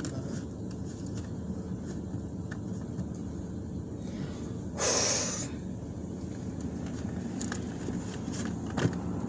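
Steady low hum of a car cabin, with one short, sharp nasal sniff about five seconds in from a person who is upset.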